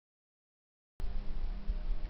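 Bell 407 helicopter running, starting abruptly about halfway through after silence: a steady whine of several held tones over a heavy, uneven low throb.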